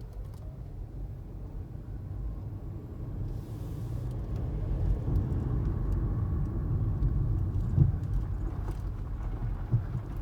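Car driving along: low rumble of tyres and engine that grows steadily louder.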